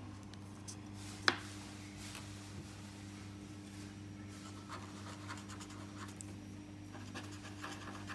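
Felt-tip marker scratching on paper in short strokes, with a single sharp click about a second in, over a steady low hum.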